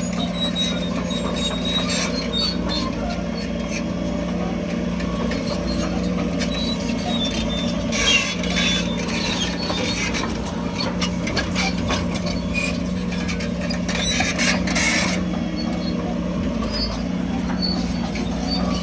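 Bulldozer's diesel engine running steadily, with metallic squeals and clanks from the crawler tracks. The squeals and clanks are loudest about eight and fifteen seconds in.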